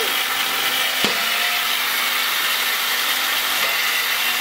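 A competition robot's flywheel shooter motors run with a steady whine and hiss, with one sharp knock about a second in as a ball is fired.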